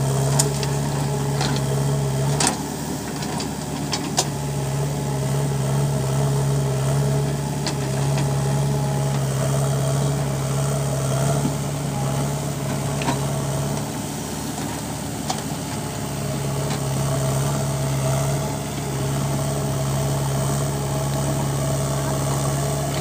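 JCB 3DX backhoe loader's diesel engine running steadily while the backhoe loads mud into a truck; its steady note dips and comes back a few times. A few short, sharp knocks sound over it, the strongest about two and a half seconds in.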